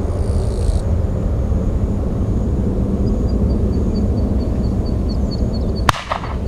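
Airbus A320-200 jet airliner climbing away after takeoff, heard from a distance as a steady low engine rumble. Faint high chirps repeat a few times a second in the second half, and a sharp click near the end is followed by a dip in the rumble.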